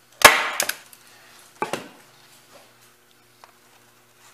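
A hand staple gun firing a staple through screen mesh into a door frame: one sharp snap with a quick light click after it, then a softer click about a second and a half later.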